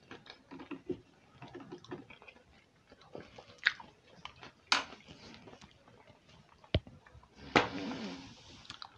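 A person chewing a mouthful of sushi roll close to a clip-on microphone: soft wet mouth sounds with a few sharp clicks, and a short breathy sound near the end.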